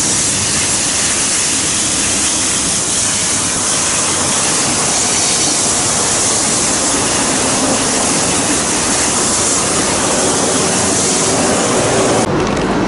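Compressed-air blow gun blasting water out of a wet socket set and toolbox tray: a loud, steady hiss that cuts off sharply near the end when the trigger is released.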